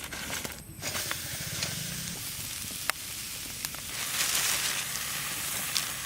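Food frying in hot oil: a steady sizzle with a few sharp pops.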